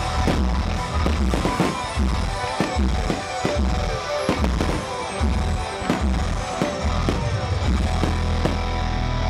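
Music with a heavy, steady bass line, with fireworks popping and banging over it.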